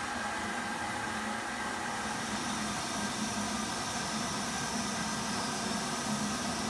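Locomotive standing with a steady hiss over a low hum.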